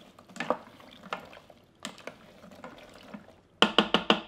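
Water and raw green peanuts sloshing and clattering softly as a wooden spurtle stirs them in a stainless steel pressure-cooker pot. Near the end comes a quick run of about five sharp knocks.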